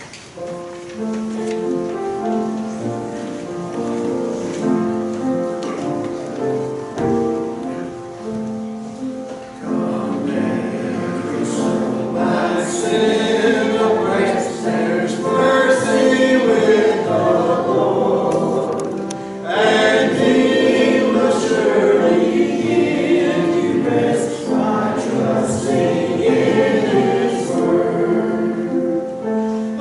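A church congregation singing a hymn together with instrumental accompaniment. For about the first ten seconds only held chords of the accompaniment are heard, then the voices come in.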